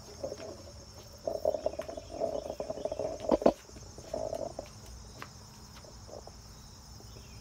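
Crickets chirring steadily in the background. Between about one and four and a half seconds in there are rubbing noises and a couple of sharp knocks, the loudest just past three seconds, from the phone being handled as the camera swings round.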